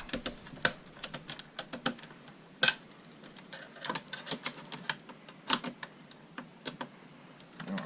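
Irregular small metal clicks and taps of a screwdriver and tiny screws being worked out of an original Xbox's casing, with one sharper click a little under three seconds in.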